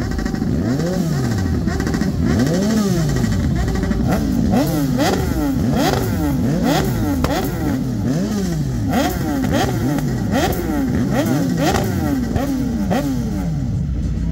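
BMW S1000RR inline-four sport bike with an Akrapovic GP exhaust being revved again and again while standing, the engine note rising and falling about once a second, with sharp cracks between some of the revs.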